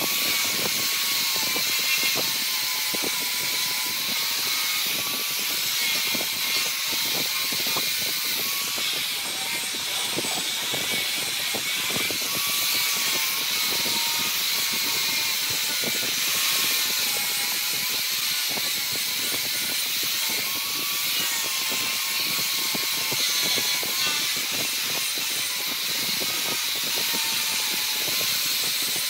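Wood lathe running with a turning tool cutting into the spinning wood: a steady, high, hissing scrape with a faint whine that wavers in pitch, over many small crackles.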